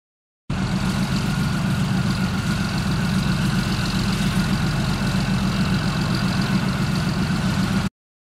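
Volvo single-drum road roller's diesel engine running steadily. The sound starts about half a second in and cuts off abruptly near the end.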